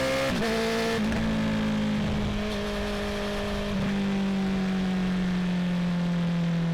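2019 Honda CB650R's 649 cc inline-four, breathing through a full Akrapovic titanium exhaust with the dB killer removed, running at steady low revs. There is a short break in the engine note about a second in, then the pitch slowly drifts lower.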